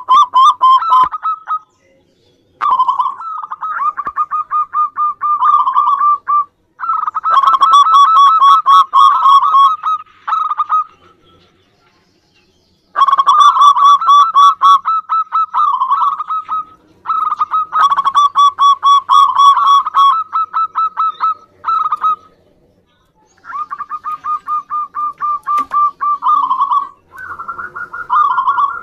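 Zebra dove (perkutut) cooing: rapid trains of short, staccato notes in phrases lasting a few seconds, broken by brief pauses and one longer silence about halfway through.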